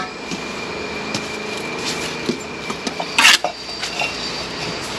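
Bricklaying: a steel trowel and bricks give scattered light clinks and knocks as bricks are bedded in mortar, with a short scrape about three seconds in. A faint steady tone hums in the background for the first three seconds.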